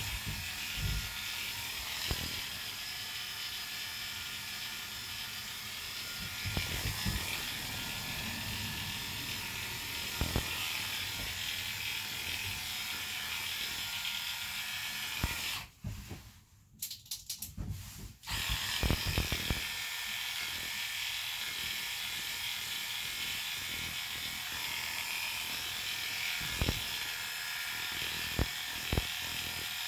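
Cordless dog clippers running steadily as they are drawn through a wiry Airedale terrier coat. About halfway through, the motor cuts out for a couple of seconds with a few clicks, then starts again.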